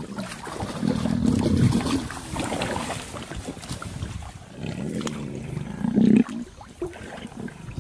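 Lions growling low and rough as they feed in shallow water, with water sloshing around them.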